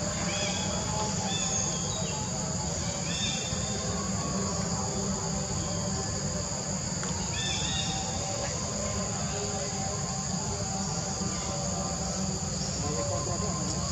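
Steady high-pitched chorus of insects buzzing continuously, over a low steady rumble, with a few short bird chirps in the first seconds and again about halfway through.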